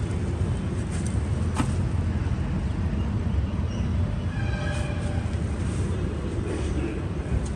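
Steady low rumble of city background noise, traffic from the street below, with a faint click and a few faint short high sounds near the middle.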